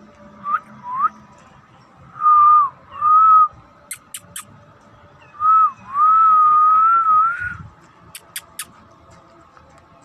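A person whistling to call a kitten: two short rising chirps, two half-second whistles, then a long, slightly wavering whistle about six seconds in. Two sets of three quick, sharp clicks come between and after the whistles.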